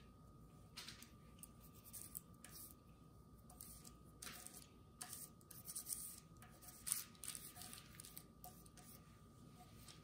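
Faint, irregular scratching and crinkling of a fork dabbing and scraping through paint on a wax-paper palette, with a slightly louder scrape about seven seconds in.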